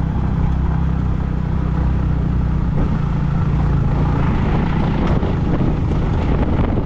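Yamaha MT-15's single-cylinder engine running steadily under way, heavy wind rush on the microphone mixed in.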